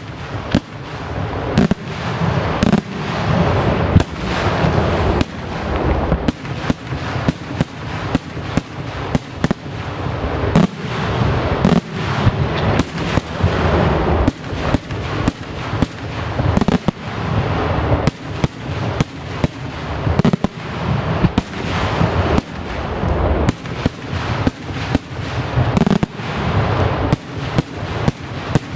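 Daytime fireworks barrage: a rapid, unbroken string of loud bangs from aerial salutes bursting into white smoke puffs, several a second, with a low rumble between the reports.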